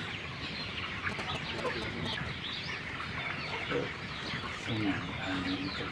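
A large flock of young white broiler chickens clucking and cheeping together, a dense, steady chatter of many short overlapping calls.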